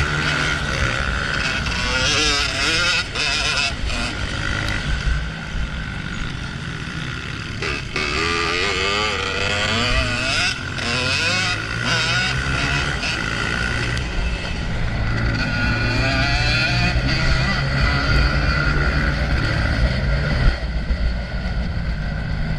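Honda CRF125F dirt bike's small single-cylinder four-stroke engine running under riding load, its revs rising and falling again and again as it is ridden off-road.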